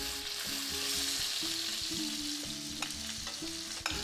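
Flour-dredged chicken pieces sizzling in olive oil in a frying pan as they are lifted out with metal tongs, a steady hiss, with one sharp click near the end.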